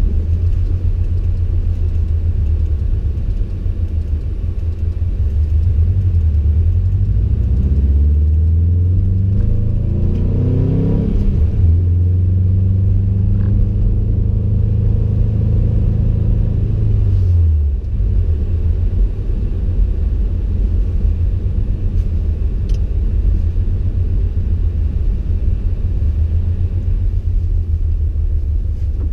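Cabin sound of a 2020 Subaru WRX STI with a Stage 3 tune and turbo-back exhaust: its turbocharged 2.5-litre flat-four drones low at cruise. About a fifth of the way in the revs climb for several seconds under acceleration, hold, then fall away sharply a little past halfway before settling back to the steady low rumble.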